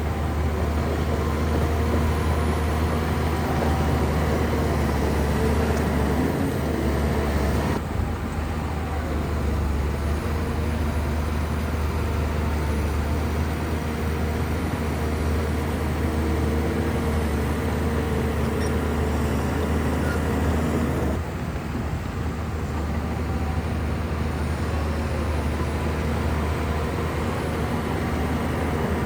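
Heavy bulldozer diesel engine running steadily at work, a deep continuous drone, with the sound shifting abruptly twice.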